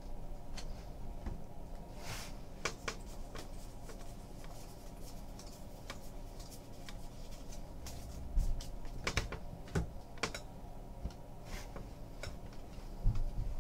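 Baseball trading cards being handled and flipped through by hand: soft scattered clicks and slides of card against card. A few dull knocks, the loudest a little past the middle and near the end.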